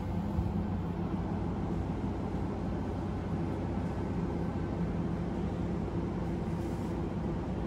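Steady drone of a diesel railcar, the Kiha 32 'Kappa Uyouyo-go', heard from inside the carriage: an even engine hum under a constant running rumble.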